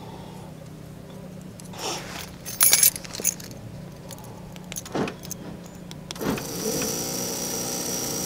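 Light metallic rattles and clicks from parts being handled, loudest about two and a half seconds in. About six seconds in, an LED headlight bulb's built-in cooling fan spins up, rising in pitch, then settles into a steady, high, buzzing whine like a cicada. It sounds like this because the fan is shot.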